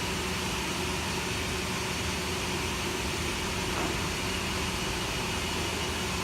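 Band sawmill running steadily: a continuous mechanical noise with a low, even hum underneath.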